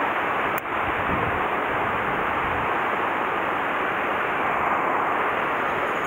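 Mountain stream water rushing steadily, with a single sharp click about half a second in.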